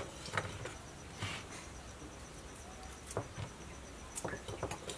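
Faint knocks of produce and utensils being handled, then a quick run of short scraping strokes near the end as a carrot is peeled.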